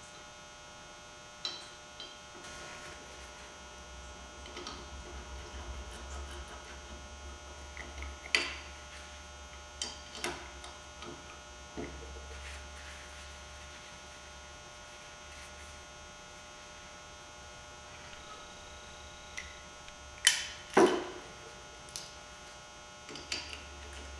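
Scattered clinks and knocks from handling a new snowplow hydraulic pump and a wrench as the pump is set in place, the loudest a close pair about twenty seconds in, over a steady electrical hum.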